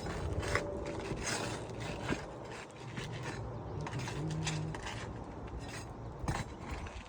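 A roof shingle being slid and scraped back into place against the neighbouring shingles: a series of irregular rubbing and scraping strokes.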